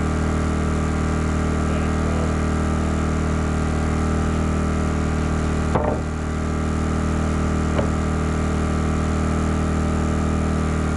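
An engine running steadily at an even speed, with a couple of faint knocks partway through.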